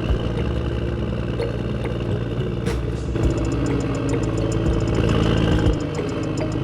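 The motor of a mini handmade tractor running steadily, with light rapid clicking over it.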